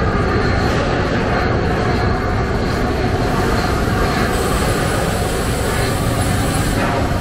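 Gas-fired ladle preheater burner firing an open flame, a loud, steady rushing noise of gas combustion and forced air.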